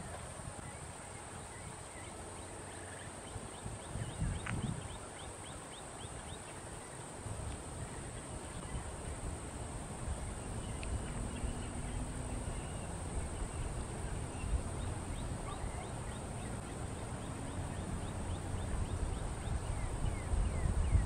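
Outdoor wetland ambience: low wind rumble on the microphone that grows stronger near the end, a steady high insect drone with faint rapid ticking, and a few faint, short distant bird calls.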